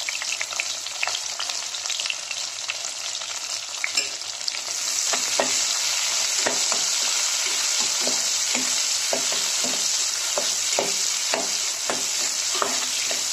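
Sliced onions sizzling in hot groundnut oil in an aluminium pressure cooker. About five seconds in a metal spoon starts stirring them, scraping and knocking against the pot about twice a second, and the sizzle grows louder.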